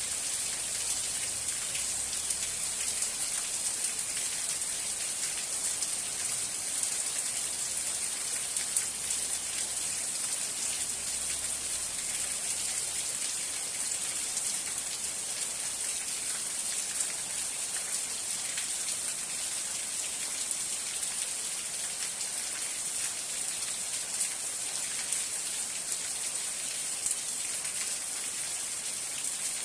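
Steady rain falling, a dense even hiss of many small drops pattering on surfaces.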